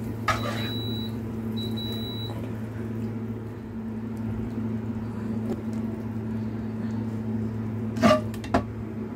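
Rice cooker giving its high electronic beep twice in the first two seconds, the signal that the rice is cooked, over a steady low hum. Two short knocks near the end.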